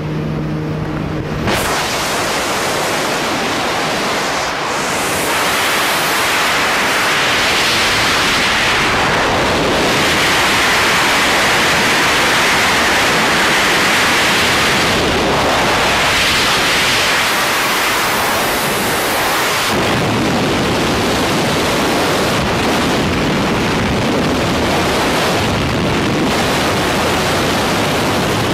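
Wind rushing over the microphone in skydiving freefall, a loud steady rush of noise. During the first second and a half, the steady drone of the jump plane's engine is heard in the cabin.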